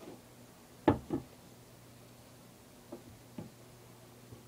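Light knocks of objects set down or tapped on a work surface: two sharp ones close together about a second in, then two fainter ones a little later.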